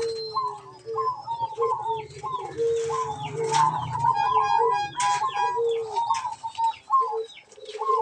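Several zebra doves (perkutut) calling in their aviary cages, short cooing notes from different birds overlapping. A couple of sharp clicks come in the middle.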